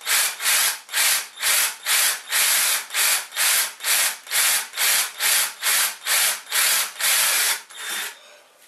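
Cordless drill boring a pilot hole into a wooden batten, the cutting coming in regular surges about twice a second and stopping near the end.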